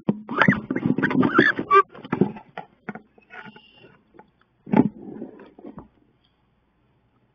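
Two female wood ducks fighting inside a wooden nest box: scuffling, scrabbling and wings striking the walls, mixed with harsh calls. The noise comes in bursts, with a dense stretch in the first two seconds and another burst near five seconds, then stops about six seconds in.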